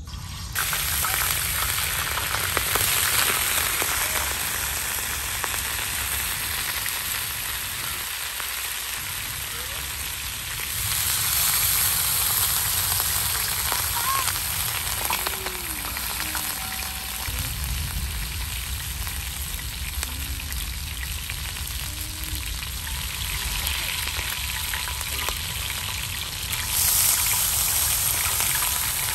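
Chicken chapli kabab patties shallow-frying in hot oil on a wide iron tawa: a steady, dense sizzle. It swells louder twice, about a third of the way in and near the end, as more patties go into the oil.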